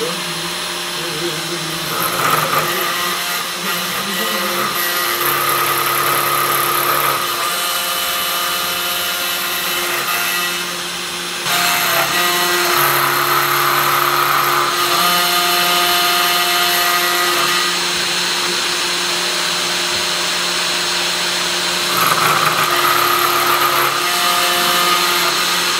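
A CNC 3018 router's 500 W spindle running and milling a clear plastic sheet with a small end mill. Alongside it the stepper motors whine in steady tones that change pitch or drop out every few seconds as the axes move along the toolpath.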